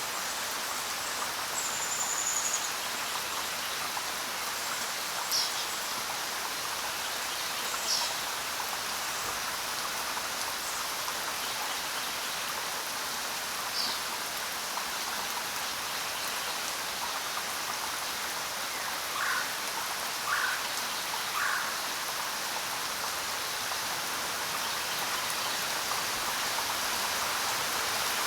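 Steady rain falling on the ground, an even hiss of drops. A few brief chirps sound over it, including three short ones in quick succession a little past halfway.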